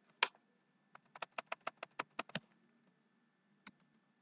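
Keystrokes on a computer keyboard: one sharp key press just after the start, then a quick run of about a dozen keystrokes, and a single press near the end.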